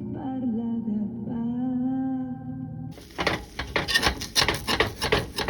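A wordless humming voice holds and glides between notes over a low steady drone. About three seconds in it cuts to food sizzling in a frying pan, with rapid crackling and stirring clicks.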